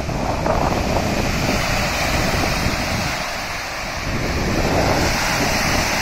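Wind-driven waves breaking and washing onto the shore, with strong gusting wind buffeting the microphone in a steady low rumble.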